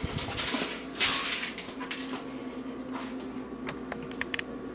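Rustling handling noise as ingredients are put into a glass blender jar, then a few light clicks and taps against the glass. A steady low hum runs underneath.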